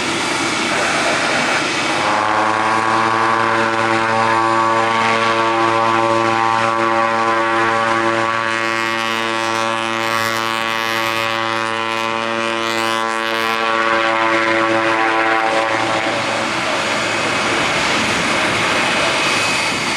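Twin Pratt & Whitney PT6A turboprops of a USAF MC-12W (Beechcraft King Air 350ER) running on the runway, a propeller drone over engine noise. The steady pitched drone comes in about two seconds in and fades away after about fifteen seconds as the aircraft moves off.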